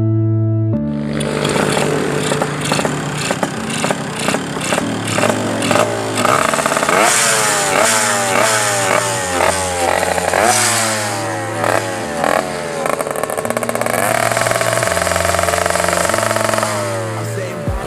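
Tuned Yamaha Alfa two-stroke motorcycle engine being blipped repeatedly, its pitch shooting up and dropping back again and again, then held at a steady high rev for a couple of seconds toward the end.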